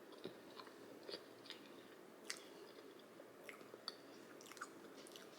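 Faint chewing with scattered soft mouth clicks, from someone eating a slice of cake dessert.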